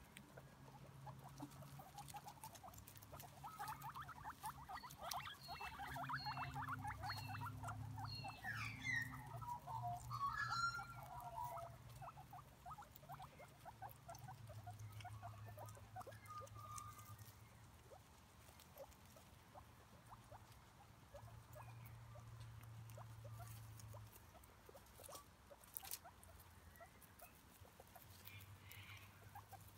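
Guinea pigs grazing, a faint rapid crunching of grass being chewed and stems rustling, busiest in the first third, with a few short high chirps in that stretch. A low steady hum lies underneath.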